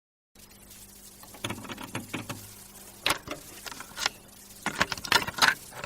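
Scattered irregular clicks and rustling over a faint steady low hum, with a few sharper clicks near the end.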